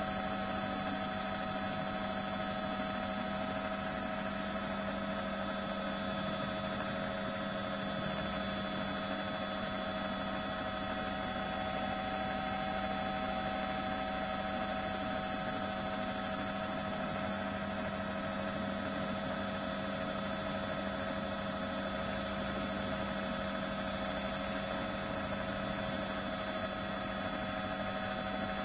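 Helicopter in flight, heard as a steady drone with several constant whining tones that do not change.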